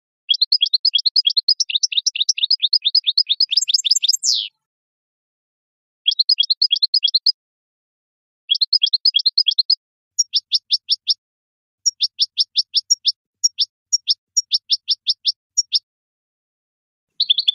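European goldfinch singing: a long, fast run of high twittering notes for about four seconds, then five or six shorter phrases of quickly repeated notes with brief silent gaps between them.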